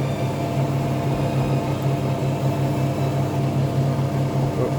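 Steady low mechanical hum of a running kitchen appliance motor, even and unchanging throughout.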